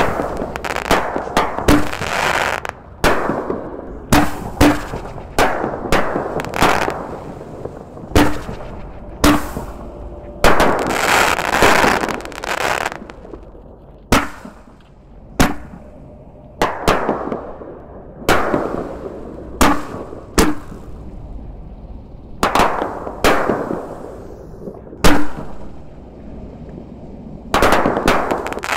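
Reloadable artillery shells fired one after another, each launch and burst a sharp bang with a fading rumble. The bursts are irregular, some close together, with a denser, longer stretch about eleven seconds in.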